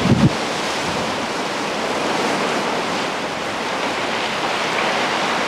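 Sea surf surging and breaking against rocky cliffs, a steady loud rushing hiss. A brief low rumble of wind on the microphone in the first moment.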